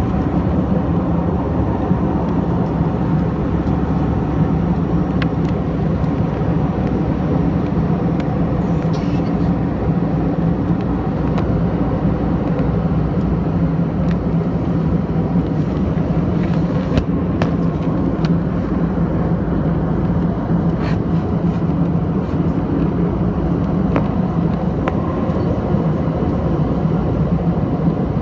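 Steady in-flight cabin noise of an airliner: the low, even drone of the engines and rushing air, with a few faint clicks scattered through it.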